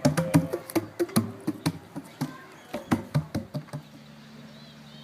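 A quick, irregular run of sharp knocks, about three or four a second, lasting nearly four seconds. A steady low hum follows.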